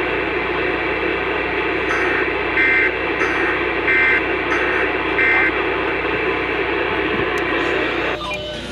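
Emergency Alert System end-of-message data bursts over radio static. Steady loud hiss, then from about two seconds in six short raspy two-tone digital bursts about half a second apart. The static cuts off shortly before the end.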